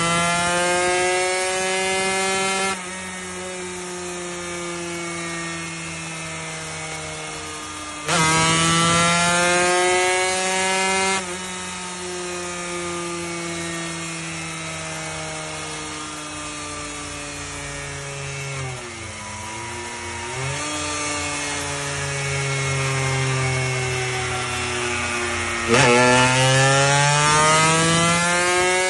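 Racing motorcycle engine running under test, its pitch rising and falling as the throttle is worked. Three louder stretches where the throttle opens hard bring a raspy hiss, and the note dips briefly about two-thirds of the way through.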